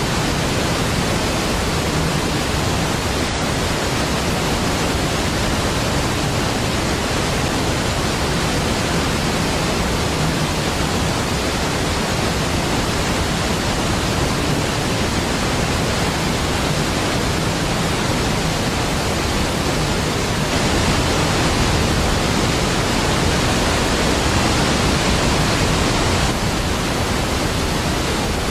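Large waterfall: a deep, steady rush of falling water with no breaks, growing a little louder for a few seconds about two-thirds of the way through.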